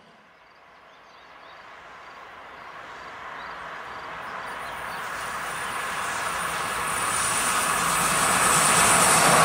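DB Class 110 electric locomotive hauling passenger coaches, approaching on open track: the steady rush of wheels on rail grows louder throughout. A thin high whine comes in about halfway and strengthens as the train draws near.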